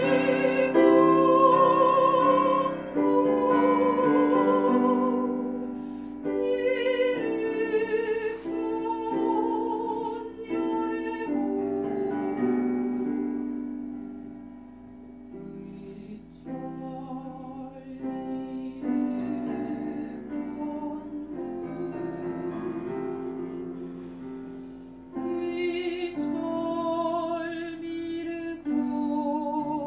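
Slow background music: a melody of long held notes that waver in pitch, changing every second or two over a soft accompaniment.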